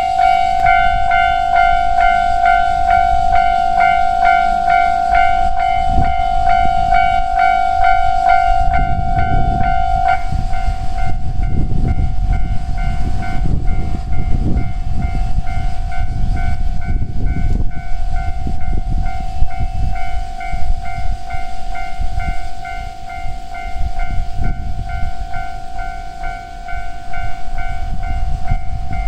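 Japanese level-crossing alarm bell ringing in an even, repeating clang. A train rumbles through the crossing from about nine seconds in, and the bell becomes quieter about ten seconds in.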